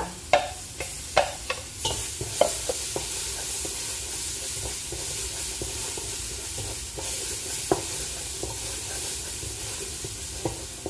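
Minced garlic and onion sizzling as they sauté in a large stainless steel pot, with a wooden spoon knocking and scraping against the pot as they are stirred. The sizzle grows louder about two seconds in, and the spoon knocks come thickest in the first couple of seconds.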